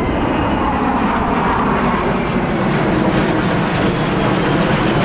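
Airplane engine noise, loud and steady.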